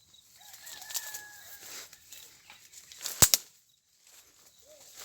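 Chickens calling, with one loud, sharp smack about three seconds in.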